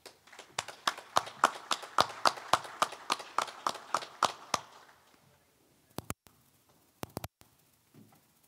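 A small group applauding, the individual claps distinct and coming about three or four a second; the clapping dies away after about five seconds, leaving a few scattered clicks.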